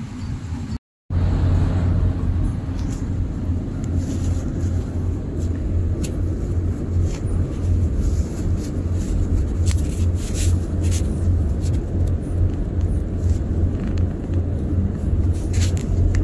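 Steady low rumble of a car driving along a road, heard from inside the cabin, with a few faint clicks over it. The sound cuts out briefly about a second in and comes back louder.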